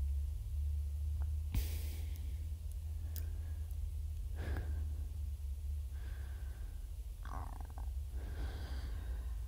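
Steady low room hum, with a few breathy sniffs and sighs from people eating spaghetti, and a light clink of a fork on a plate about one and a half seconds in.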